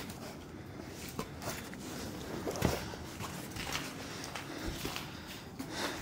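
Footsteps on a gritty, debris-strewn concrete floor, irregular steps with one louder knock about two and a half seconds in.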